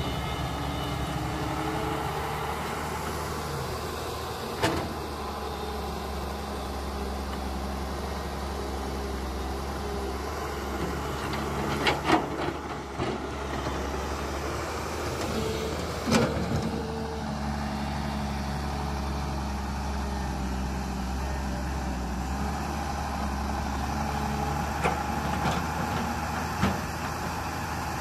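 Radio-controlled Cat tracked excavator working as it digs sand: a steady motor hum whose pitch shifts as the boom, arm and bucket move, with a few sharp knocks along the way.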